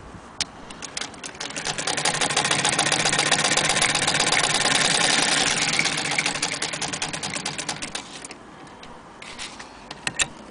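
Hand-cranked Singer 66K sewing machine running: a fast clicking mechanism that speeds up over the first couple of seconds, runs steadily, then slows and stops about eight seconds in, followed by a few single clicks.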